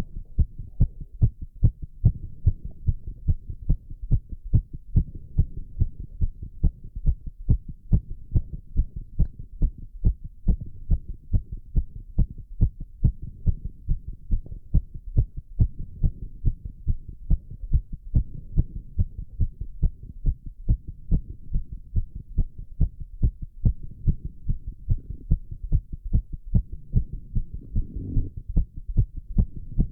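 A man's heartbeat beating fast and steadily after squats, a quick even train of low thumps at about two a second.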